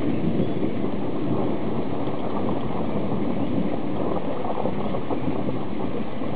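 Steady rain falling during a thunderstorm, an even, unbroken hiss.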